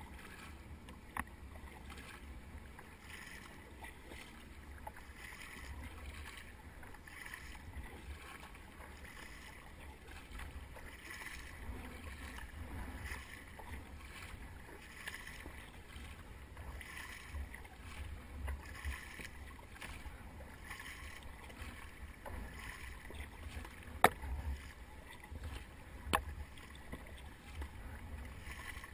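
Kayak paddle blades dipping and pulling through calm water, a soft splash about once a second, over a low rumble. A few sharp knocks cut through, one near the end much louder than the rest.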